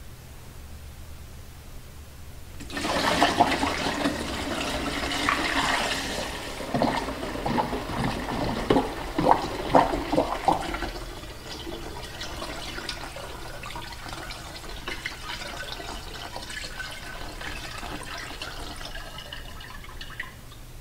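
Used Evapo-Rust rust remover pouring out of a foil pan through a plastic funnel into a jug, with part of it spilling onto the workbench. The pouring starts about three seconds in. It is loudest for the next several seconds, with a few sharp splashes near the middle, then thins to a quieter trickle.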